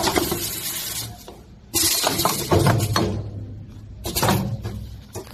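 Semi-automatic wipe packing machine working: three bursts of hissing, each about a second long, over a steady low machine hum.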